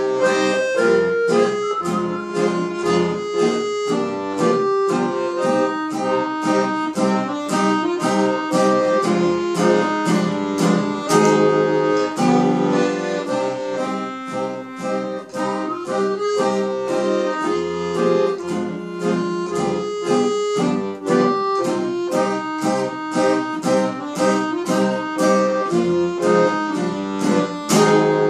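Piano accordion and acoustic guitar playing a tune together, the accordion holding chords and melody over a steady strummed guitar rhythm.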